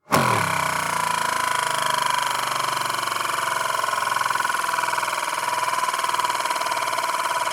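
A spinning object whirring steadily, with a prominent ringing tone and a fast fluttering texture; it starts abruptly at full level.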